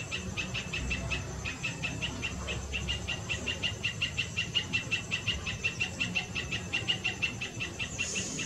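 Rapid, steady high-pitched chirping from a small animal, about seven chirps a second, over a low background rumble, with a brief hiss near the end.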